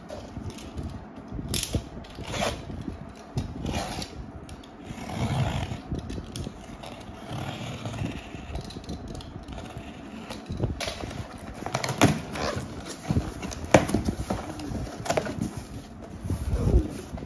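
A tape-wrapped cardboard shipping box being handled and opened by hand: irregular scraping, tapping and tearing of cardboard and packing tape. Near the end comes the rustle of the plastic-wrapped contents.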